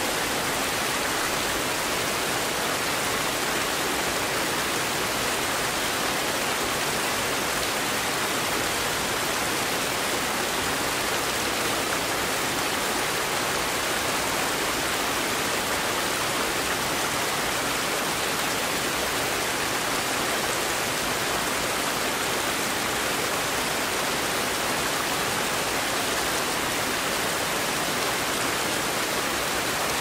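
Fast, high river rushing through whitewater rapids and over a low fall: a steady, unbroken rush of water.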